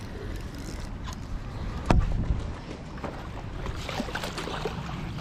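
Steady low rumble of wind on the microphone over choppy canal water, with a single sharp knock about two seconds in.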